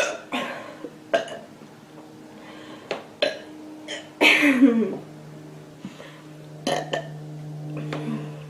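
A girl burping after drinking Pepsi: one long burp about four seconds in that drops in pitch, with several shorter sounds before and after it. A steady low hum runs underneath from about halfway.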